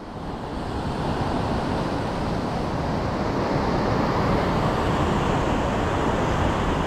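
Sea surf washing against the rocks: a steady rushing noise that swells over the first couple of seconds and then holds.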